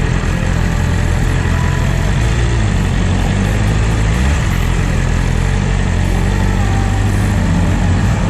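BMW S1000RR motorcycle engine running at low revs in slow traffic, a steady low hum that shifts slightly in pitch now and then. Wind and road hiss are on a helmet microphone.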